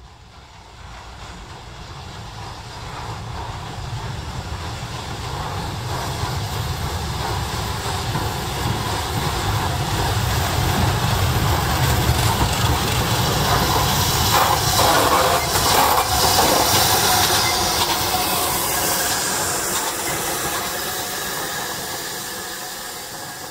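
Steam train passing: a rumble with hissing steam that builds over about a dozen seconds, peaks in the middle, and then fades away.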